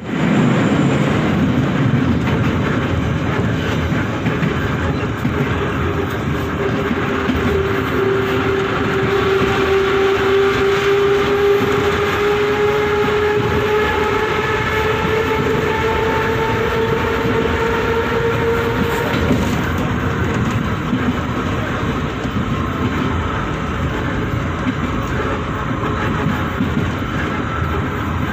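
Moscow metro train running, heard from inside the passenger car: a steady, loud rumble of the train on the rails. A whine with several higher overtones comes in about a fifth of the way through, rises slowly in pitch, and fades out about two-thirds of the way through.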